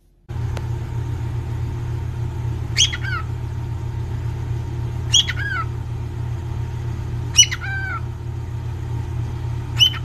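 Cockatiel giving four short whistled calls, each sliding down in pitch, about two seconds apart, over a steady low rumble.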